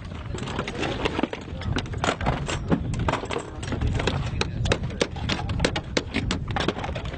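Rapid, irregular clacks and knocks of ammunition crates and their contents being handled and set down, growing busier after a couple of seconds, over a low wind rumble on the microphone.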